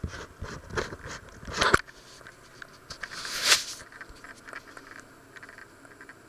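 Camera handling noise: a quick run of knocks and bumps, the loudest about two seconds in, then a short rustling swish and a few faint clicks as the camera is picked up and moved.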